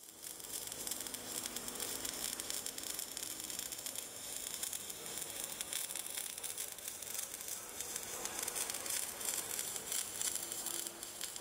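Gas-shielded wire-feed (MIG/MAG) arc welding: the arc gives a steady crackling sizzle.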